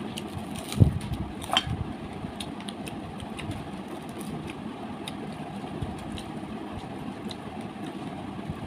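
Eating sounds: chewing and fingers picking at fried fish, with scattered small wet clicks and smacks over a steady background hum. A dull thump about a second in is the loudest sound.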